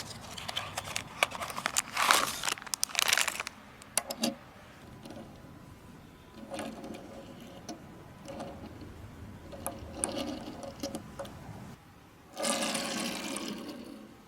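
Hands handling toy packaging and small die-cast cars: irregular clicks, scrapes and rustling, with a longer stretch of steady rustling near the end.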